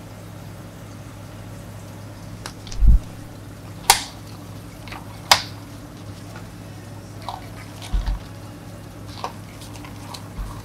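Plastic dome lids snapped onto two iced-coffee cups: two sharp clicks about a second and a half apart, with a couple of low thumps and lighter ticks of the cups being handled on the counter, over a steady low hum.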